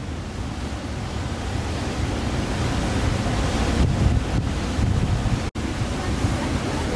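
Gale-force wind of around 45–50 knots buffeting the microphone, over the rush of breaking surf, getting louder as it goes. The sound cuts out for an instant a little past the middle.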